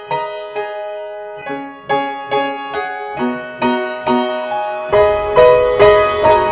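Music: a piano playing a steady pulse of notes, about two and a half a second, with fuller accompaniment and deep bass joining about five seconds in.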